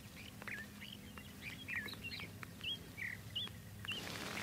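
Small birds chirping: a quick, irregular series of short, varied chirps and twitters, with a few faint ticks among them.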